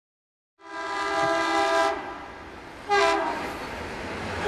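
Train horn sounding several tones at once: a blast of about a second, a short second blast about two seconds later, and another long blast starting right at the end, with a rushing noise between the blasts.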